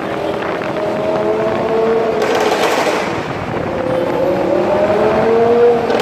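Lamborghini Huracán's V10 with a Fi aftermarket exhaust accelerating hard twice, the engine note rising in pitch each time. A burst of exhaust crackles and pops comes about two seconds in.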